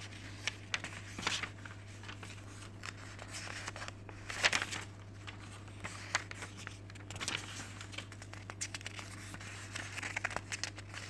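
Paper rustling as printed manual pages and leaflets are leafed through and shuffled by hand: a run of short rustles and page flicks, with a louder rustle about four and a half seconds in.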